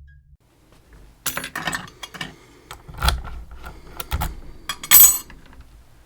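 Small metal parts clicking and clinking as they are handled, a run of sharp knocks with the loudest near the end.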